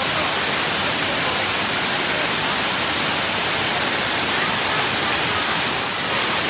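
Waterfall: a steady, loud rush of falling water close to the microphone.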